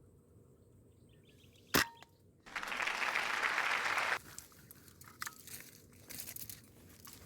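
A single sharp air-rifle shot about two seconds in, followed by nearly two seconds of loud rustling and crackling, then scattered lighter crackles.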